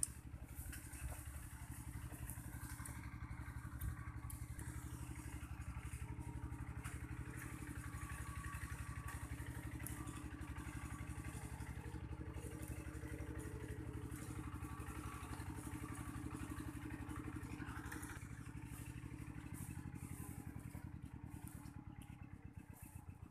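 An engine running steadily with a rapid low pulsing, the pulses slowing and fading near the end.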